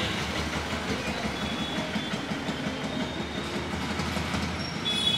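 ATUL ice-gola shaving machine running with a steady, fast, even rattle.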